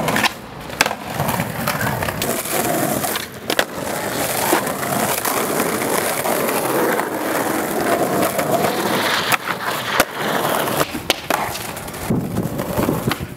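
Skateboard wheels rolling on rough asphalt and concrete, broken by several sharp cracks of the board popping and slapping down on landings.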